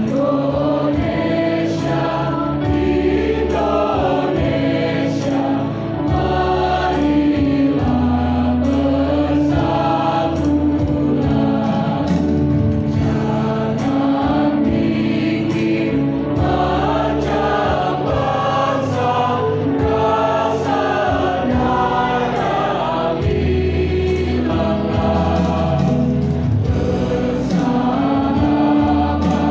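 Mixed choir of teenage boys and girls singing together in sustained phrases.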